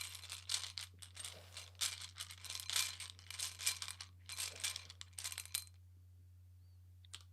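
A deck of tarot cards being shuffled by hand: a quick, irregular run of rustling, riffling strokes that stops about five and a half seconds in.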